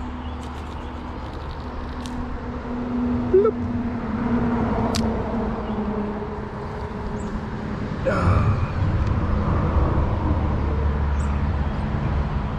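Steady low rumble of passing road vehicles, swelling louder about two-thirds of the way through, with a few light clicks.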